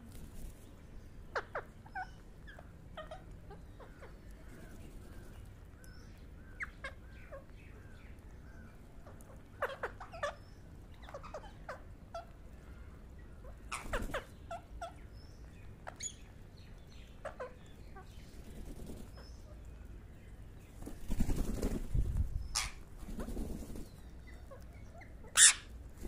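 A flock of rose-ringed parakeets feeding, giving scattered short chirps and squawks with the flutter of wings. There is a louder rustling flurry a few seconds before the end, and then one sharp, shrill screech, the loudest sound of all.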